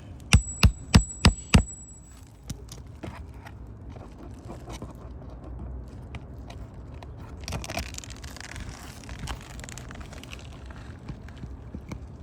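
Five quick hammer blows with a metallic ring, typical of a hammer striking a roofing nail or pry bar on the shingles, followed by softer scraping and rustling of shingles being worked.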